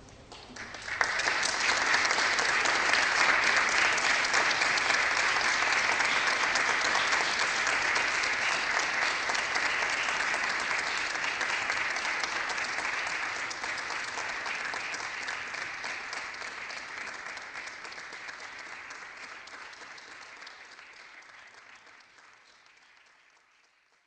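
Audience applauding. It starts abruptly about a second in and fades away gradually to nothing near the end.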